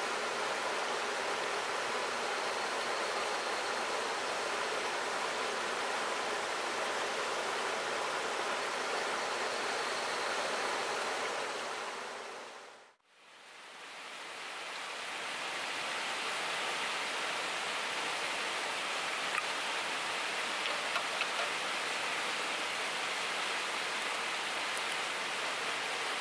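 Steady rushing of a shallow river flowing over rocks. About halfway through it fades out to silence and fades back in, and a few faint ticks come in the second half.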